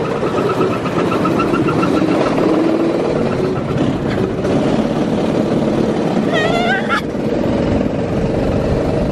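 A go-kart's small petrol engine running steadily at speed, with wind noise. About six and a half seconds in there is a short rising high-pitched squeal that stops abruptly.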